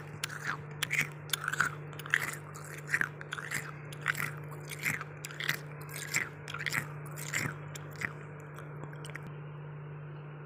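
Freezer frost being crunched in a steady rhythm, about two crisp crunches a second, stopping about eight seconds in. A steady low hum runs underneath.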